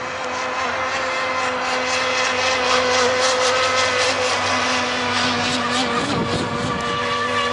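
Radio-controlled racing boats running at speed on the water, their small engines making a steady drone that grows louder over the first few seconds.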